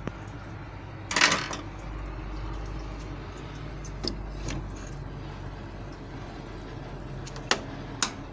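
Clatter and clicks of a Wilo circulation pump's motor head being worked loose and lifted off its housing in a combi boiler: a loud rattle about a second in, a few light clicks, then two sharp clicks near the end.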